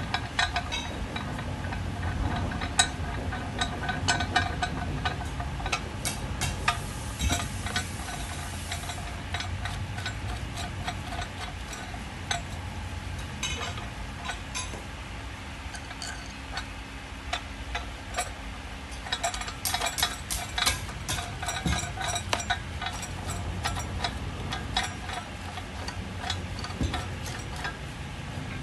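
Steel parts of a metal bracket being handled: a steel pin sliding through its holes and metal pieces knocking, giving irregular sharp clicks and clinks, busiest about two-thirds of the way through, over a steady low hum.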